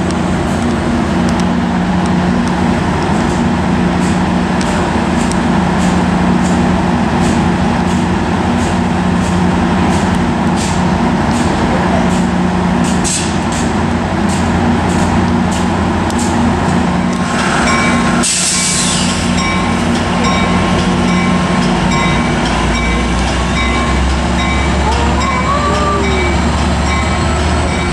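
Diesel passenger locomotives at a station platform: a steady engine drone with a run of sharp clicks through the first half, a short burst of air hiss about 18 seconds in, and a deeper drone from about 22 seconds on.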